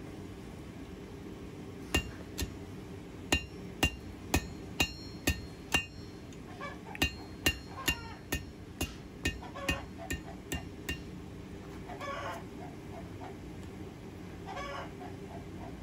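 Hand hammer striking a red-hot quarter-inch garage door spring of high-carbon steel laid over a hardy cutter in the anvil, cutting into it to knock a piece off: about eighteen ringing blows at roughly two a second, starting about two seconds in and stopping at about eleven. Chickens cluck in the later part.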